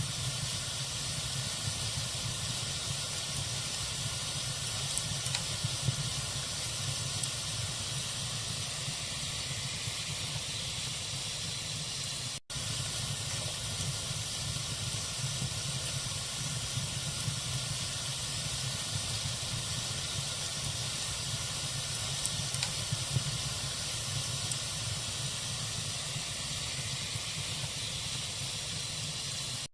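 Log fire burning in a fireplace: a steady hiss with a few faint crackles. The sound cuts out for an instant about twelve seconds in.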